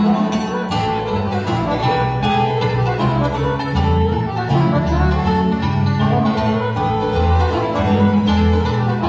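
Live lăutărească (Romanian folk) band music: string instruments playing a quick melody over a bass line that steps from note to note.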